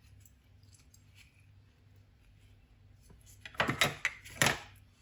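Kitchen knife cutting into an orange: a few quiet seconds, then a quick run of sharp cutting knocks starting about three and a half seconds in, as the knife works around the orange to cut a hole in its middle.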